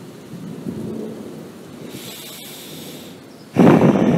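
Thunderstorm: a low rumble of thunder, then a loud thunderclap about three and a half seconds in.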